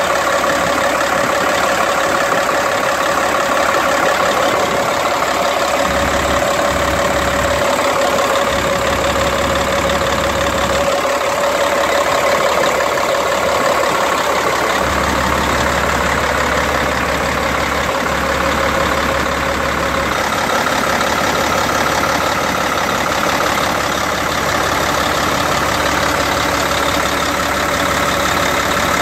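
Caterpillar C10 inline-six diesel engine in a Peterbilt 379 idling steadily, heard up close at the open engine bay, with a steady whine above the engine note.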